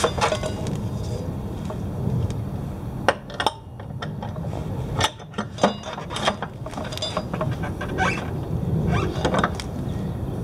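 Metal parts clinking and knocking as a scooter's front wheel hub and axle parts are fitted together by hand, in irregular sharp clicks over a steady low background rumble.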